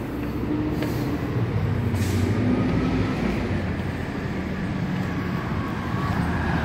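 Transit bus engine running as the bus drives along the road: a steady low rumble that grows somewhat louder.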